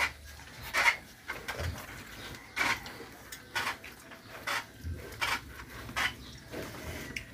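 Young piglets making short, rough sounds about once a second.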